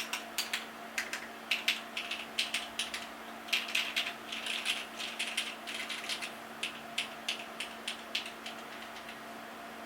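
Keystrokes on a plateless, foamless Neo80 mechanical keyboard with lubed and filmed 1992 vintage Cherry MX Black linear switches and GMK keycaps. Each key clicks on the way down and again on the way up. The stabilized keys are pressed first, then single letter keys, then quick rolls across groups of keys, and the typing stops about eight and a half seconds in.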